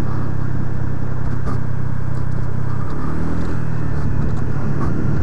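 Honda PCX 125 scooter's single-cylinder engine running steadily while riding, its note stepping up a little about three seconds in.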